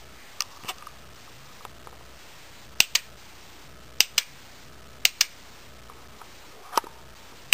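Sharp plastic clicks from a K'nex elastic band gun's trigger and two-cog mechanism, mostly in quick pairs, each pair a trigger click stepping the cog forward one notch. About five pairs come roughly a second apart.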